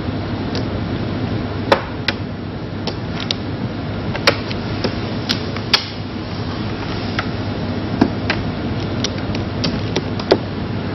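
Mahjong tiles clacking sharply as they are drawn and discarded on the table: single clicks every second or so, over a steady low background hum.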